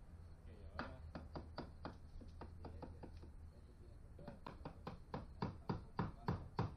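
Hammer blows on wooden wall framing, quick and repeated at about four to five a second: a lighter run for the first few seconds, a short pause, then a run of harder blows that grows louder toward the end.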